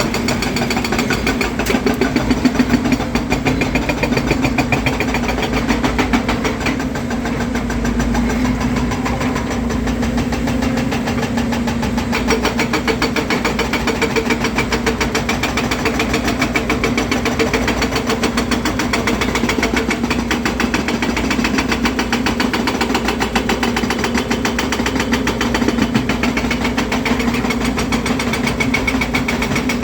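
Volvo EC300DL excavator's diesel engine running steadily.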